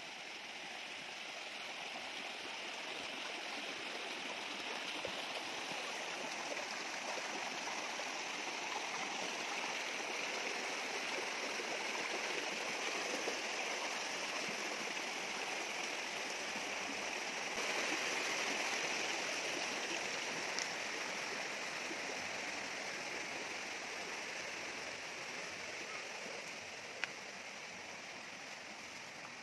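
Shallow rocky mountain stream rushing over stones, a steady hiss that slowly swells and then fades near the end. A single sharp click sounds near the end.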